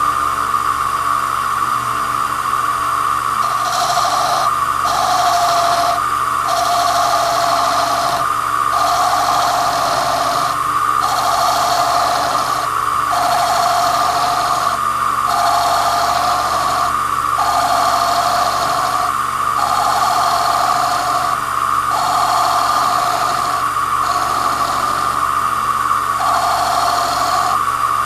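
Cue lathe motor running steadily while a razor blade trims the side of the spinning leather cue tip, a soft SIB Pro. The cutting comes in repeated strokes about every two seconds, starting a few seconds in.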